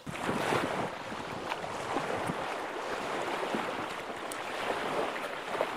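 Steady wind rushing over the microphone, with a few faint clicks of boots and trekking poles on gravel.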